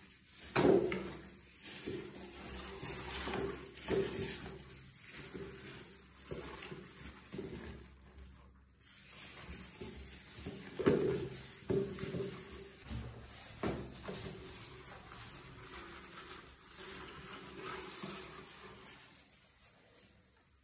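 Irregular knocks and rustling from a white plastic bucket holding two white rats on loose bedding. The knocks ring briefly, with the loudest about half a second in and near the middle.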